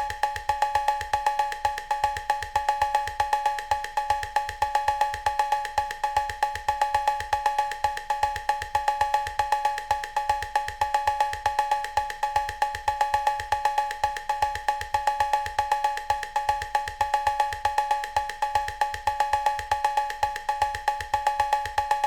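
Cowbell playing a fast, steady repeating pattern on its own, about five strokes a second, each stroke a bright two-note clank.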